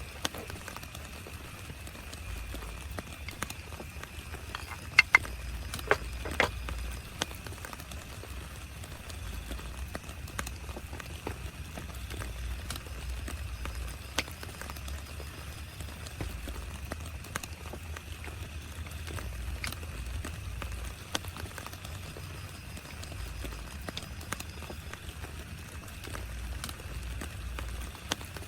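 Rain on a tent: irregular drops tapping on the fabric over a steady rain hiss and low rumble, with a few louder taps about five to six seconds in.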